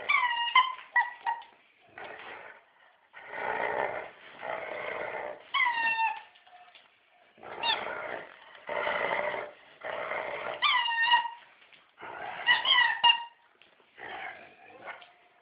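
A dog growling in rough spells of a second or two while a rubber squeaky toy squeals in short clusters of falling squeaks between the growls, about every two to three seconds.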